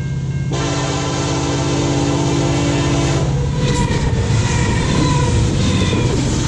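CN freight train's diesel locomotive approaching with its engine humming. Its horn sounds from about half a second in for nearly three seconds and cuts off sharply. The locomotive then passes close by, and the heavy rumble of wheels on rail takes over.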